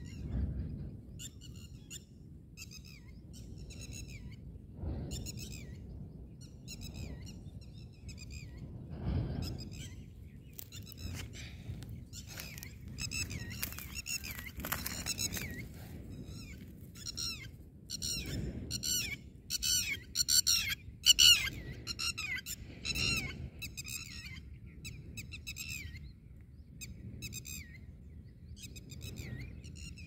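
Red-wattled lapwing calls: short, high notes that dip in pitch, repeated in quick runs and loudest in the middle stretch, over low rustling and handling noise.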